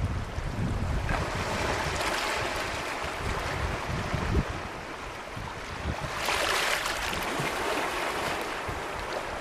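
Small Baltic Sea waves washing in over a pebble beach, the water hissing and lapping among the stones, with a louder wash about six seconds in. Wind rumbles on the microphone underneath.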